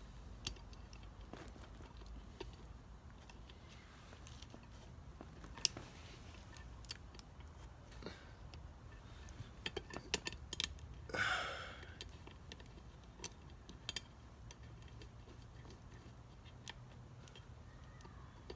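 Scattered light metallic clicks and taps of small parts being handled on an automatic transmission valve body as a spring-loaded plate is pressed down and fitted, with a short breathy burst about eleven seconds in and a faint steady hum underneath.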